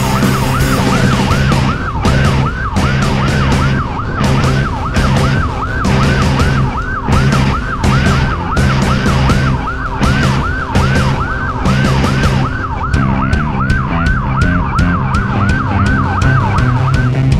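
Fast yelping siren wailing up and down about two and a half times a second over music with a steady beat; the siren cuts off near the end.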